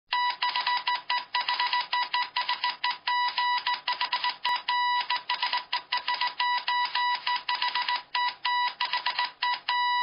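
Electronic beeping sound effect: a high tone switched on and off in a rapid, irregular chatter of short beeps.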